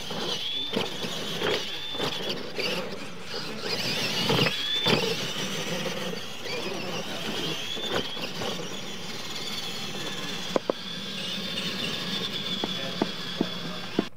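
Radio-controlled monster trucks racing on dirt: their electric motors and gears whine, rising and falling in pitch as they accelerate and slow, over the noise of the tyres in the dirt. There are knocks from jumps and landings, including one about eight seconds in, and a few sharp clicks near the end.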